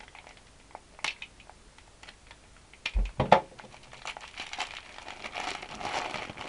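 Clear plastic wrapping being cut and torn open by hand: a few sharp clicks and a knock in the first half, then crinkling of the plastic that grows louder toward the end.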